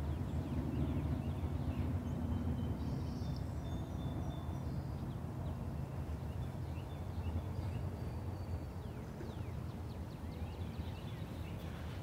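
Outdoor background noise: a steady low rumble with a few faint, thin high chirps and tones above it.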